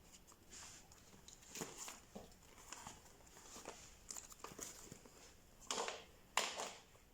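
Faint rustling and light tapping of notebooks and a faux-leather notebook cover being handled, with two louder rustles near the end.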